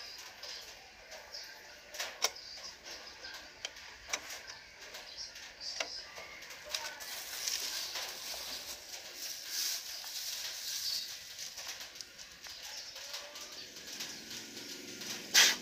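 Scattered light metallic clicks and clinks from hand-fitting the springs and shoes of a Nissan rear drum brake, with a sharper, louder clink near the end. Birds call faintly in the background.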